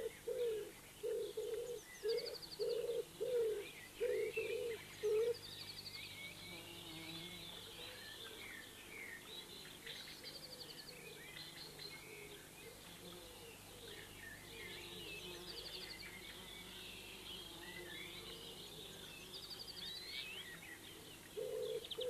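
Countryside birdsong: a pigeon coos in a run of low repeated notes for the first five seconds or so, while small birds chirp and trill throughout.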